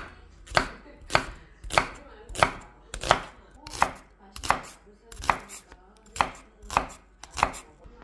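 Serrated kitchen knife slicing through an onion and striking an end-grain wooden cutting board. About a dozen even chops come at a little under two a second.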